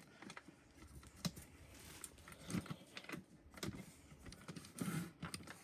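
Irregular clicks, taps and light knocks of handling at a furnace's filter slot and housing, with a few louder knocks.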